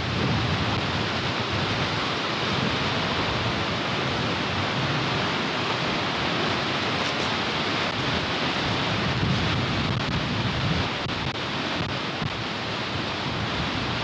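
Steady rushing noise of Skógafoss, a large waterfall, heard close to its base.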